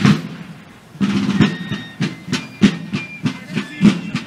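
Military fife and drum march music: a drum roll breaks off, and about a second later the drums beat a steady march of about three strokes a second under a high fife melody.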